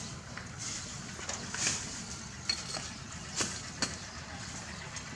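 Steady outdoor background noise with a few short, light clicks and knocks at uneven intervals.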